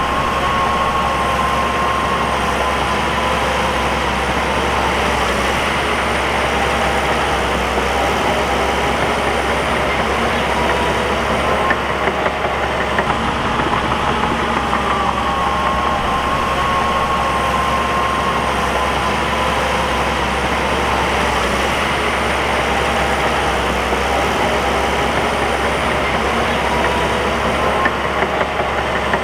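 Bulldozer's diesel engine running steadily, with a whine that slowly rises and falls in pitch.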